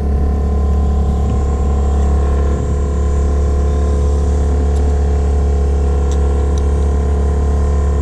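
A 9.9 hp outboard motor running steadily at cruising speed, a constant low drone with a steady hum above it.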